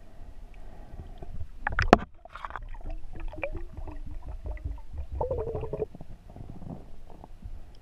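Muffled sound heard underwater: a sharp knock about two seconds in, then crackling and gurgling from rising air bubbles.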